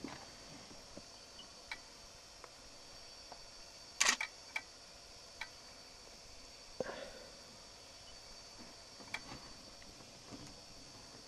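Sparse sharp clicks over a faint steady hiss. The loudest is a quick double click about four seconds in, with a softer, duller knock a few seconds later.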